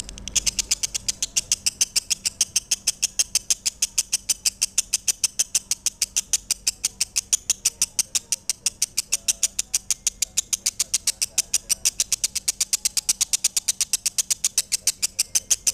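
Lovebird chirping in one long unbroken run of sharp high chirps, about six a second, starting about half a second in.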